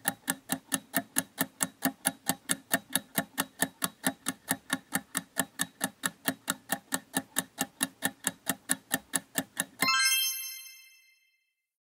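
Countdown timer sound effect: an even, rapid ticking at about four to five ticks a second, ending near the end in a single bright bell chime that rings out as time runs out.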